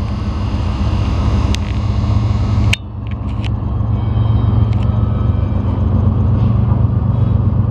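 Diesel locomotive engine running with a steady, loud low drone. An abrupt break comes a little under three seconds in, and the engine then grows louder again.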